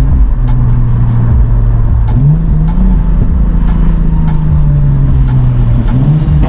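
Lexus IS350's 2GR-FSE V6 running through an Invidia midpipe and Manzo axle-back exhaust, a steady, loud engine note whose revs rise about two seconds in and change again near the end.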